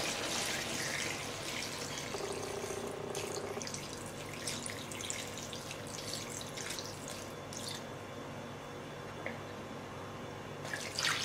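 Coconut milk poured in a steady stream from a bowl into a wok of fried oncom and green chillies, trickling and splashing into the pan.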